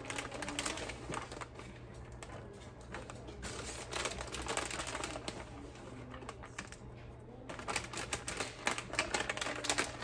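Crinkling and rustling of a plastic shredded-cheese bag as cheese is shaken out of it, in bursts of small crackles with quieter spells between.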